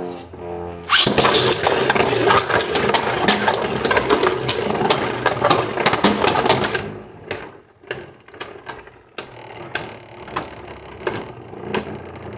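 Two 3D-printed Beyblade Burst spinning tops in a plastic stadium, clashing and scraping in a dense clatter that starts suddenly about a second in and lasts about six seconds, then only scattered separate clicks and knocks.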